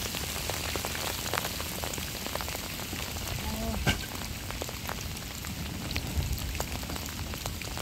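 Steady rain falling, heard as an even hiss full of many separate drop hits.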